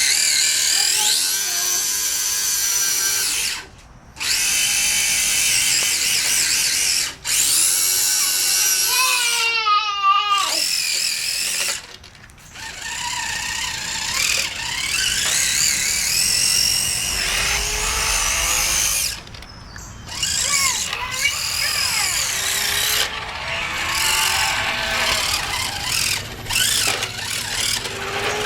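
Losi Mini Rock Crawler's electric motor and gear drive whining as it crawls, rising and falling in pitch with the throttle and stopping briefly several times.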